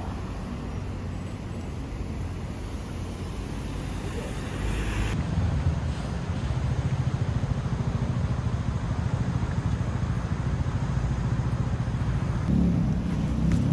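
Road traffic passing in a city street, a steady low rumble that grows louder about five seconds in.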